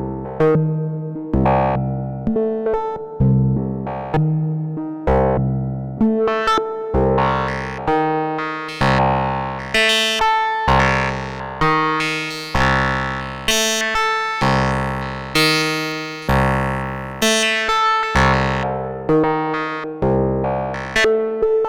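Eowave Quadrantid Swarm hybrid synthesizer playing a step-sequenced pattern: pitched notes, each starting sharply and fading, about one a second, the pitch stepping up and down from note to note.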